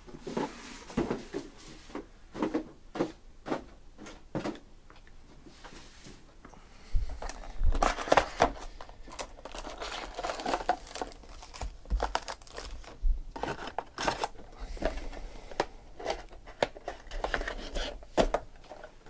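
Hands tearing open a cardboard trading-card hobby box and pulling out its foil card packs: irregular crinkling, tearing and tapping, with dull knocks as things are set on the table. The handling starts sparse and gets much busier from about seven seconds in.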